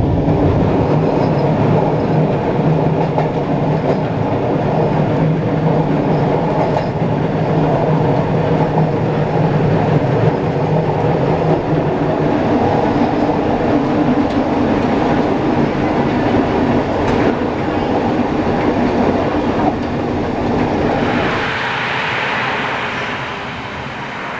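A 1950s Gotha two-axle tram running along its track, heard from inside the car: a steady rumble of wheels on rail with a droning hum. About three seconds before the end the rumble drops away and a hiss takes over.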